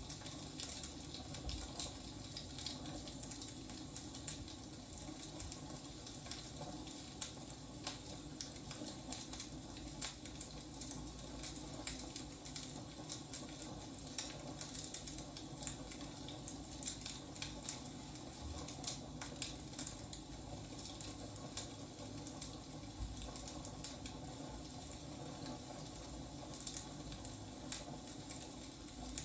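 Firewood crackling as it burns: irregular sharp pops and snaps over a steady low rushing hiss.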